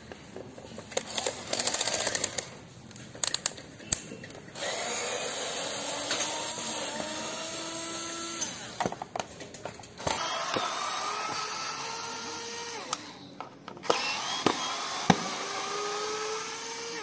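Cordless electric screwdriver running in reverse in several short runs, backing out the Phillips screws of a scooter's plastic air cleaner cover. Its motor whine drifts slightly in pitch, with a few clicks between runs.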